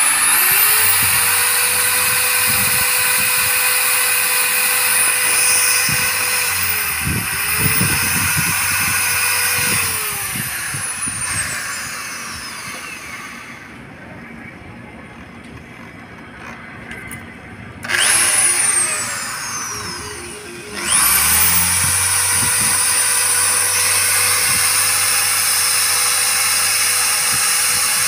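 Corded electric drill with a hole saw cutting through the plastic wall of a water tank. The motor whines up to speed and runs steadily, dips briefly about seven seconds in, and winds down around ten seconds. After a quieter stretch it runs briefly again, winds down, and starts once more about twenty-one seconds in, running steadily.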